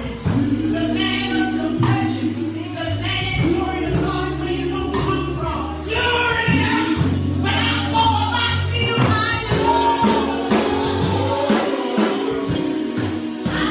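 Gospel choir singing over a band, with a steady beat.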